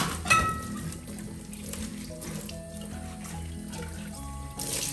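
Tap water running into a kitchen sink during dishwashing, with a sharp ringing clink of dishes twice at the start, over background music.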